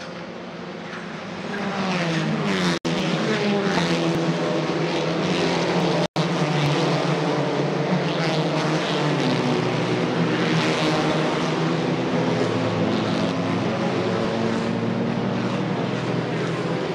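Several race-car engines at full throttle as a pack of touring cars goes by, loud from about a second and a half in, with engine notes falling in pitch as cars pass and more following close behind. The sound cuts out for an instant twice.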